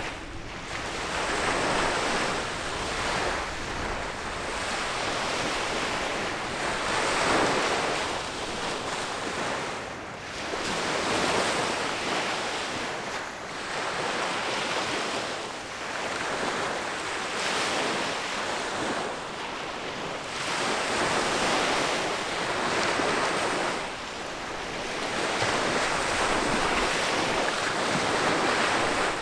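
Small waves washing against the shore, swelling and fading every two to three seconds, with wind.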